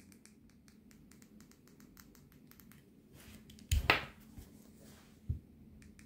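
Handling noise from a hand-held wireless camera remote: faint ticking in the first few seconds, a louder short thump a little under four seconds in, and a short low knock just after five seconds.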